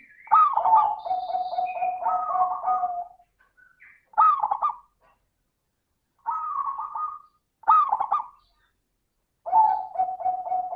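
Zebra dove (perkutut) cooing: rapid, rattling coo phrases. A long phrase comes near the start, three short ones about every two seconds follow, and another long phrase comes near the end.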